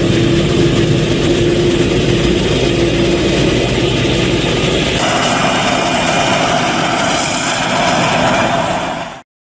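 Claas Jaguar 950 forage harvester and Schlüter Super 1250 VL tractor running while chopping maize: a low engine drone with a steady held whine, which changes abruptly about five seconds in to a higher-pitched hum. The sound cuts off abruptly just before the end.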